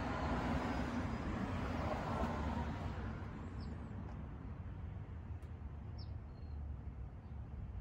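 Ducati air-cooled 1000 cc L-twin engine idling with a steady low rumble, a little louder for the first few seconds. A bird chirps a few times.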